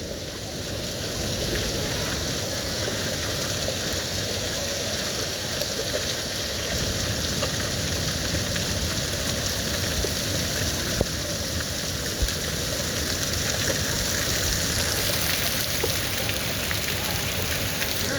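Heavy rain falling steadily in a downpour, an even hiss with a few sharp ticks of drops striking.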